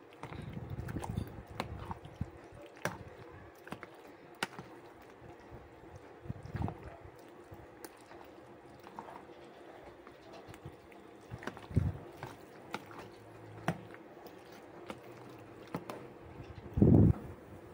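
Metal spoon stirring creamy macaroni salad in a plastic tub: soft wet squelching with scattered clicks of the spoon against the container, and a few dull knocks, the loudest near the end.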